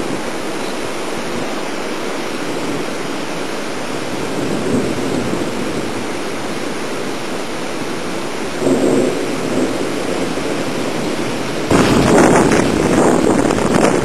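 Strong dust-storm wind blowing steadily, with a gust about nine seconds in and a harder gust near the end buffeting the microphone.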